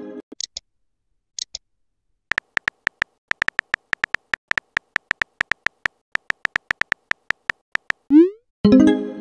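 Simulated phone-keyboard typing sound effect: a quick, irregular run of short clicks. Near the end a rising swoosh and a short chime mark a message being sent.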